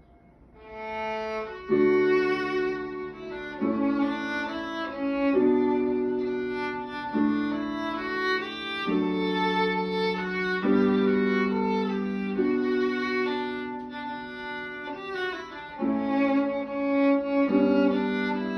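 Violin playing an old Ostrobothnian folk wedding march over held chords from an electronic keyboard, starting about half a second in.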